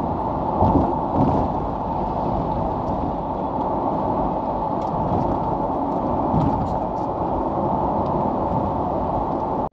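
Steady noise of a car being driven: engine and tyre noise on the road.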